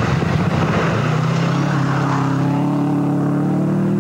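Subaru Impreza rally car at speed on a gravel stage: a rush of engine and tyre noise on gravel as it passes close, then its turbocharged flat-four held at high revs, the note climbing slightly as it accelerates away.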